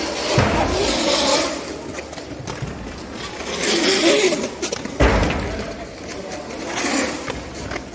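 Quad roller skate wheels rolling on a sports hall floor: a rolling hiss that swells and fades as skaters pass close, with dull thumps about half a second in and again about five seconds in.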